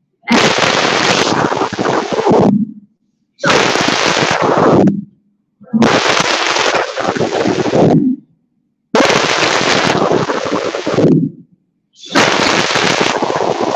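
A group of schoolchildren reciting a poem aloud in unison, heard as harsh, noise-like phrases of about two seconds each, five in a row, each broken off by a sudden drop to silence, as over a webcam video-call link.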